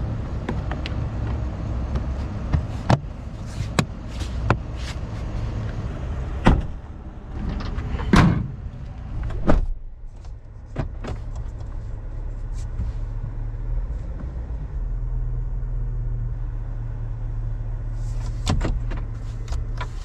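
Plastic clicks and knocks of a 2022 Chevrolet Silverado's fuse panel cover and interior trim being snapped back into place and handled, with a heavy thump about eight seconds in and a few more clicks near the end, over a steady low hum.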